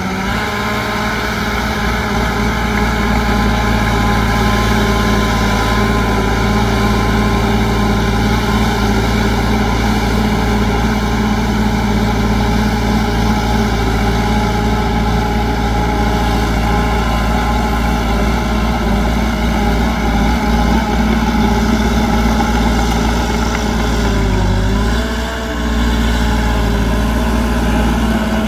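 Heavy construction machine's diesel engine running steadily, with a brief dip in pitch and loudness near the end before it picks up again.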